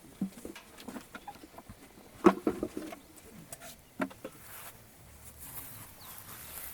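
Campfire of gathered firewood being lit: scattered sharp snaps and knocks of sticks and kindling, the loudest about two seconds in and another about four seconds in, then a faint hiss near the end.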